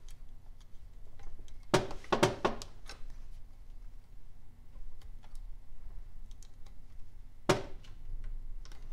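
Small metal clicks and taps as valve keepers are fitted with a clamp-type valve spring compressor. There is a quick run of sharp clicks about two seconds in and a single sharp click near the end.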